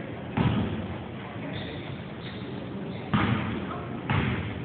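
A basketball bouncing on a hardwood gym floor: three heavy thumps, one shortly after the start and two about a second apart near the end, each echoing in the large hall.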